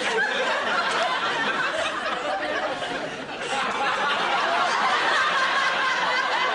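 Studio audience laughing, a continuous wave of many voices that dips slightly and swells again a little past halfway.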